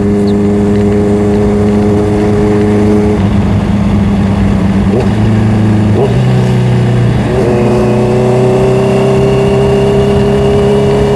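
Honda CBR650R inline-four engine running under way, holding a steady note. About six seconds in the pitch steps, then climbs slowly as the bike accelerates.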